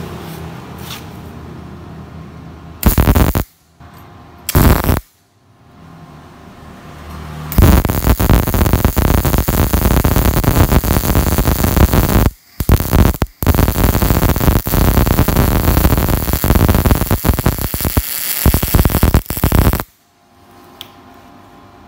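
MIG welding arc on thick steel: two short strikes of crackle, then a long continuous bead welded with a drag (pull) technique, a dense steady crackling and sizzling broken by two brief pauses and stopping about two seconds before the end.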